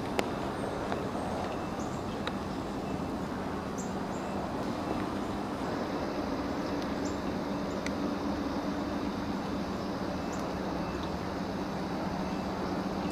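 Steady outdoor background noise with a low hum, a few faint high chirps every few seconds, and one sharp click just after the start.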